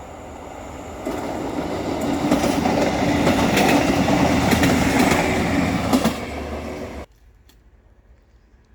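A train rolling past on the track, getting louder from about a second in, its wheels clacking over the rail joints; the sound cuts off abruptly about seven seconds in.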